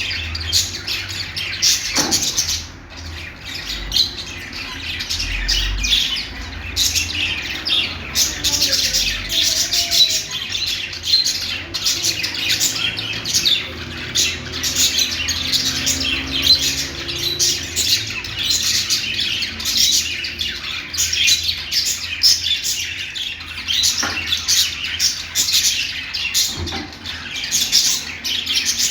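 Pet budgerigars warbling and chirping without pause, a dense chatter of quick high chirps and squawks, with a few sharp clicks.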